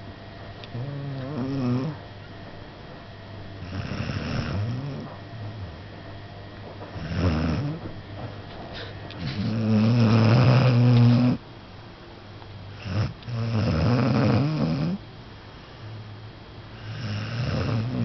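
A pet snoring, about six loud snoring breaths a few seconds apart; the longest and loudest comes near the middle.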